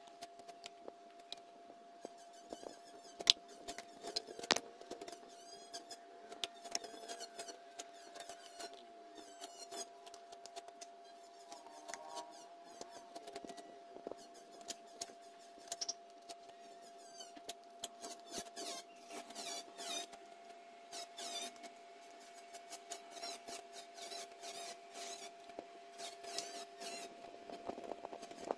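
Knife blade scraping and shaving a thin bamboo strip in many short, irregular strokes, with a couple of sharp clicks a few seconds in.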